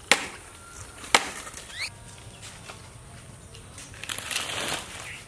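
Two chopping strikes of a blade into firewood, about a second apart, with lighter knocks after them. Near the end, dry twigs and fronds rustle and crackle as they are gathered up.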